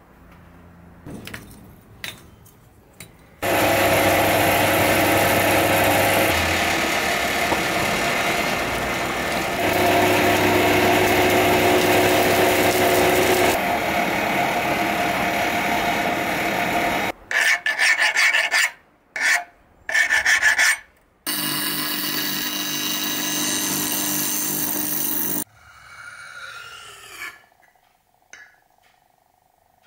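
Loud, steady rasping of tool work on metal in two long stretches, broken by a few short bursts, then quieter scraping strokes of a spearhead blade on a whetstone near the end.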